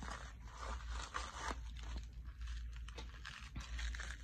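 Plastic packaging being torn open and crinkled by hand, an irregular run of crackles and rustles as a small parcel is unwrapped.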